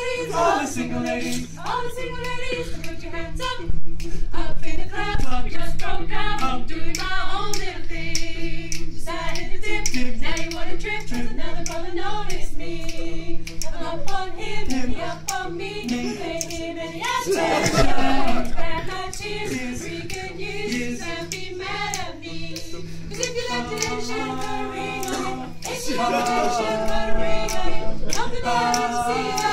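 A small group of men's and women's voices singing a cappella together.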